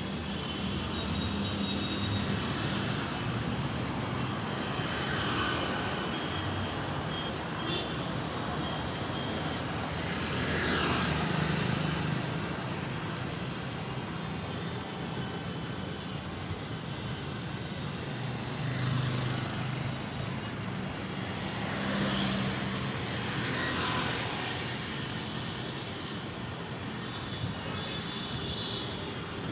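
Road traffic: a steady wash of traffic noise, with about five vehicles passing close by, each swelling and fading.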